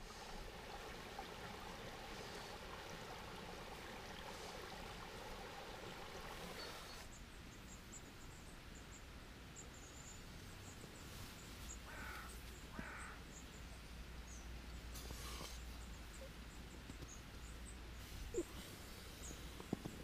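Quiet outdoor ambience of faint running water for the first several seconds, then sparse high bird chirps and two short bird calls about twelve seconds in.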